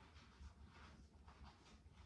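Near silence: room tone with a faint steady low hum and a few faint soft rustles.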